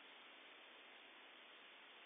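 Near silence: steady low hiss of a phone microphone.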